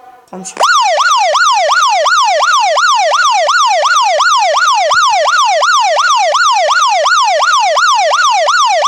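Anti-theft alarm app blaring a loud siren-like electronic wail from a phone's speaker. The wail rises and falls rapidly, about three times a second, and is set off by unplugging the phone's charger. It starts about half a second in.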